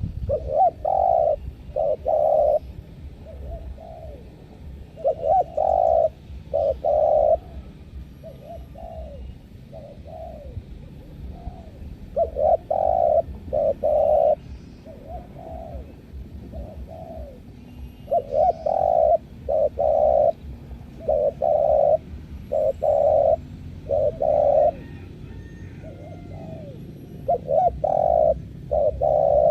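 Spotted dove (tekukur) cooing: groups of two or three loud coos repeat every few seconds, with softer coos between them, over a low background rumble.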